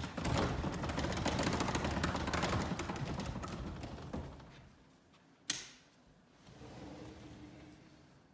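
Rattling, knocking and scuffling at a sliding glass door as two people grapple at it, dying away after about four seconds, then a single sharp crack.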